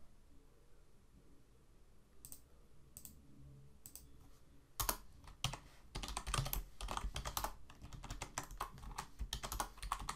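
Typing on a computer keyboard: a few scattered keystrokes at first, then from about five seconds in a quick, continuous run of key presses.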